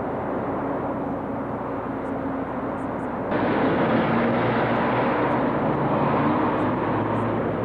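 Street traffic noise: a steady haze of passing cars, jumping abruptly louder about three seconds in.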